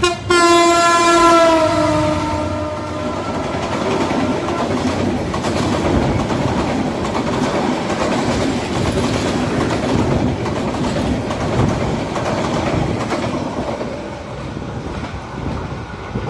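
Meter-gauge diesel express train passing at speed: a long horn blast from the locomotive, about three seconds, that drops in pitch as it goes by, then the steady rush of the carriages' wheels on the rails, fading near the end.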